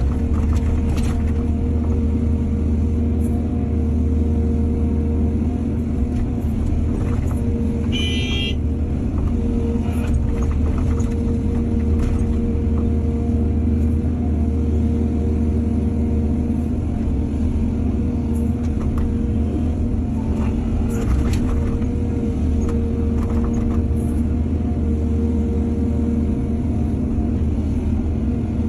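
Diesel excavator engine running steadily with a strong low rumble and a steady hum, with scattered knocks and a brief high-pitched sound about eight seconds in.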